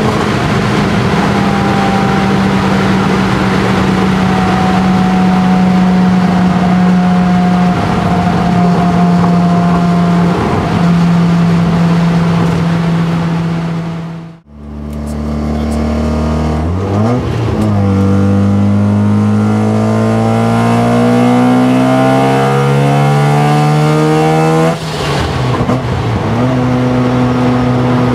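Mazda RX-7 FD3S's single-turbo 13B rotary engine heard from inside the cabin: it runs steadily at speed with its pitch slowly sagging, cuts out briefly halfway, then pulls hard with a steadily rising pitch for several seconds before a sudden lift, and settles at a steady note near the end.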